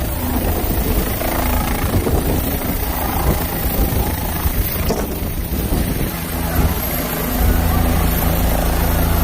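Helicopter rotor and engine noise, loud and steady, growing louder and deeper with a steady hum about seven seconds in.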